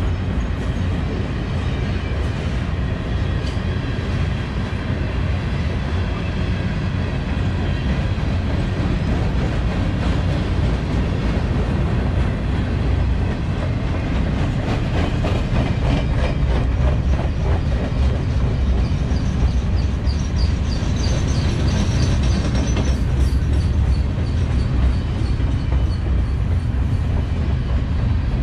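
Long freight train of loaded flatcars rolling past at close range: a steady low rumble with the wheels clicking over the rail joints, most plainly about halfway through.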